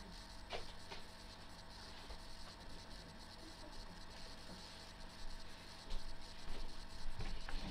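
Quiet room noise with faint rustling and a few soft clicks as a person moves about. Near the end come uneven low thumps of footsteps on a wooden floor, coming closer.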